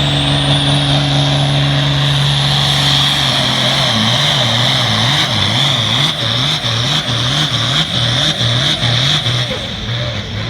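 Turbocharged International Harvester 1066 pulling tractor under full throttle dragging the pulling sled. The engine holds a steady pitch and then, about three seconds in, starts surging up and down over and over, with a high turbo whine on top. The surging goes with a run that isn't going well.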